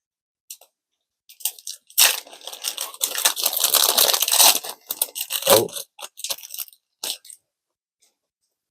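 A Pokémon booster pack's foil wrapper crinkling and tearing as it is ripped open, a dense crackle of about three seconds, followed by a few small crinkles.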